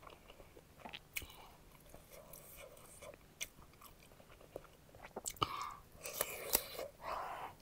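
Close-miked mouth sounds of a person eating: wet chewing with scattered smacks and clicks, busier and louder from about five seconds in.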